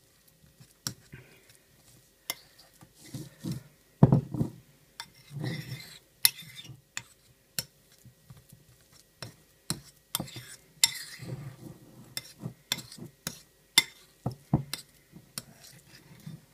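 Metal spoon scraping and clinking against a ceramic bowl while stirring a thick, crumbly mixture, in irregular strokes with an occasional duller knock.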